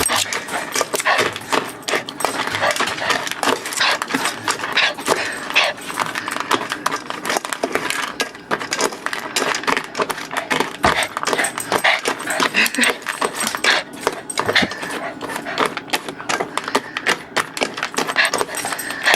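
A small dog eating spilled dry dog food: quick, irregular crunching and clicking that keeps up throughout.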